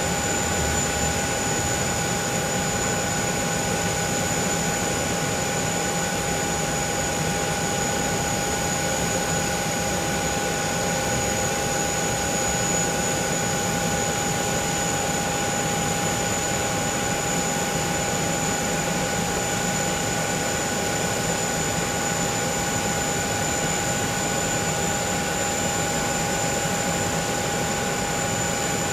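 Boeing 737-800 turbines running steadily while the airliner stands on the apron: an unchanging turbine whine, with several held high tones over an even rush.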